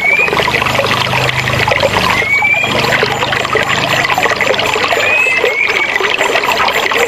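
Forest river rushing and splashing over rocks in a steady, dense flow. A bird gives short rising whistled notes every two to three seconds.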